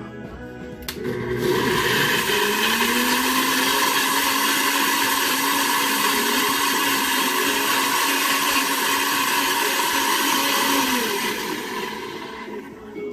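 NutriBullet personal blender pureeing onion, garlic and ginger in a little water. It starts with a click about a second in, runs steadily, and dies away near the end.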